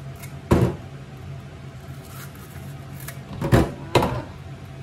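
Kitchen knife knocking against a stainless steel sink while a bitter melon is cut open and hollowed out: one sharp knock about half a second in and two close together near the end, over a steady low hum.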